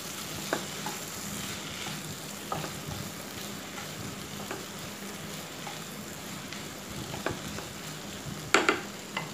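Chopped onion, carrot, potato and capsicum sizzling in oil in a kadai while a wooden spatula stirs them, with scattered light knocks of the spatula against the pan and a louder clatter about eight and a half seconds in.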